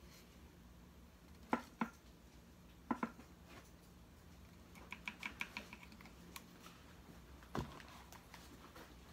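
Scattered light taps and clicks of small objects being handled on a work table: a few sharp knocks, a quick run of small ticks in the middle, and one heavier knock near the end, over a faint steady hum.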